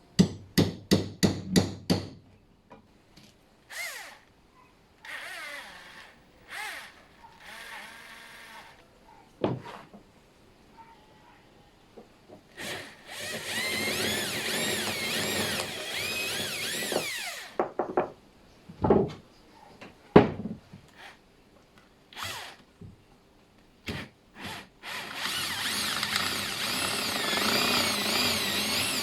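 A quick run of about eight taps, marking a guide dent, then a power drill boring holes into the wooden shelves in two runs of about four seconds each, its pitch wavering under load, with knocks and handling between.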